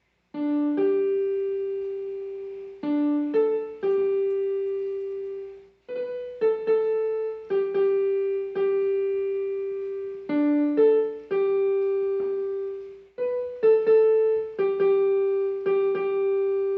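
A slow melody on a piano, played one note at a time, each note struck and left to ring and fade. The same short phrase comes round twice.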